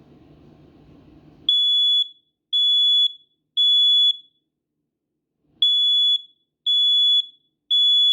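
Battery-powered smoke detector sounding its test alarm: a loud, high beep in the three-beep temporal pattern, three half-second beeps, a pause, then three more, starting about a second and a half in. It is working again now that its 9-volt battery is back in.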